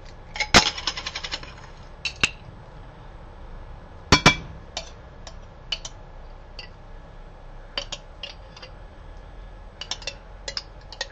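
Kitchen handling sounds as a jar of mayonnaise is opened and spooned into a salad bowl: a fast run of clicks about half a second in, one sharp knock about four seconds in, then scattered light clinks of spoon, jar and bowl.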